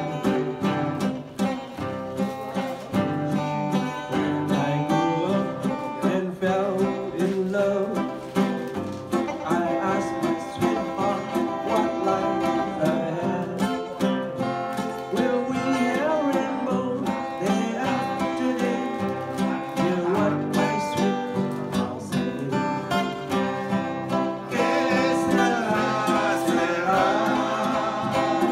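Acoustic guitar strummed and picked steadily. About three-quarters of the way in, a man's voice joins it, singing.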